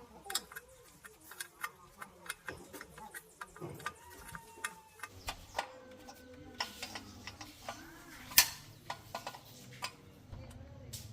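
Irregular light clicks and taps of tools and metal parts being handled during a motorcycle shock absorber repair, with one sharper knock about eight seconds in.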